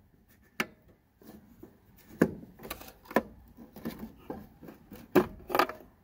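Plastic twist-lock bulb sockets being turned and worked loose from the back of a Ford F-150 taillight housing: a string of sharp plastic clicks and knocks, the loudest about two seconds in and again about five seconds in.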